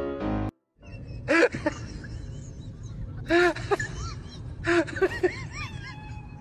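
Piano music cuts off about half a second in. After a short gap, a husky vocalizes in three bursts of short rising-and-falling yowls, each burst a few calls long, spaced about two seconds apart.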